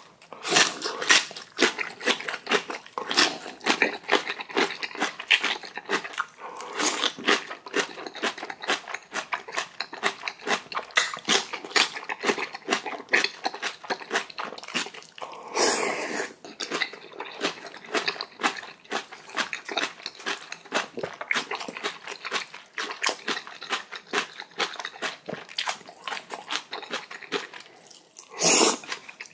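A mouthful of spicy kimchi being chewed close to the microphone: dense, irregular crunching and biting, several crunches a second. Two louder rushing sounds come through, one about halfway and one near the end.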